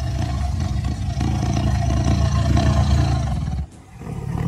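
White tiger giving a long, low, pulsing growl, which breaks off about three and a half seconds in and starts again just before the end.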